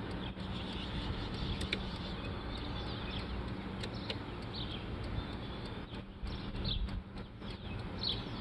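Outdoor background of a steady low hum with small birds chirping briefly now and then, and a few light clicks.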